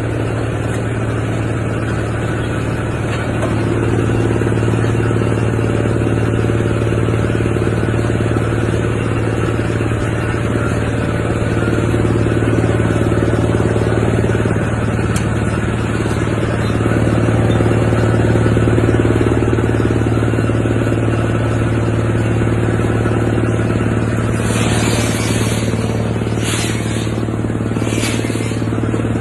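Industrial wood chipper machine running with a steady low drone that swells slightly at times. Several short, sharp bursts of high-pitched noise come in near the end.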